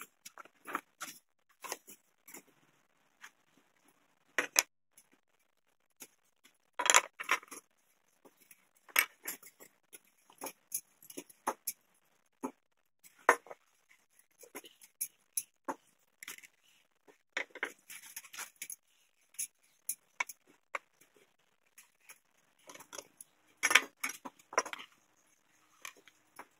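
Scattered clicks, clinks and knocks of hand tools and small metal parts being picked up and set down on a wooden board, in irregular bunches with short pauses.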